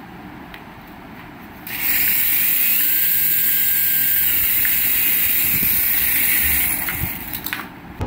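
Mini RC helicopter's small electric rotor motors spinning up to speed: a loud, high whirring with a faint steady whine. It starts about a second and a half in, holds steady for about five seconds, then winds down near the end.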